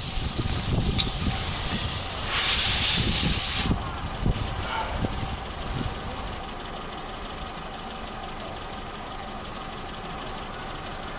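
Air hissing out of a punctured car tyre through the hole opened by the repair kit's T-handle tool, cutting off suddenly after about four seconds. A fainter hiss follows as the plug is worked into the hole.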